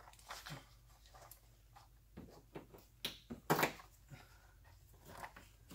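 Scattered faint clicks and knocks of plastic push-pin retainer clips being fished out of a cardboard box and pressed into a plastic inner fender liner, the loudest pair a little past halfway.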